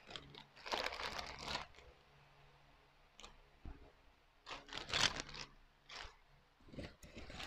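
Plastic packaging crinkling and rustling as it is handled. The sound comes in a few short bursts, with a quiet stretch of about two seconds in the middle.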